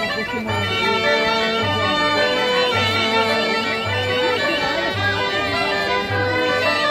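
A cobla playing a sardana live: reedy shawm-like melody lines over brass, with a double bass marking the beat about once a second.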